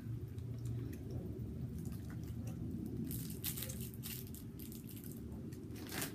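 Small crackles of a plastic candy wrapper being handled as sour bubble gum is unwrapped, with chewing, thickest about halfway through, over a steady low background hum.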